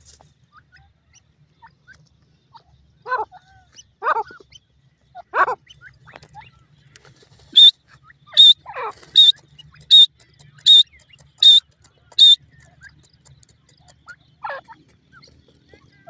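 Young grey francolins calling: a few short, falling calls, then a run of seven sharp, high chirps evenly spaced a little under a second apart, which are the loudest sounds, and one more falling call near the end.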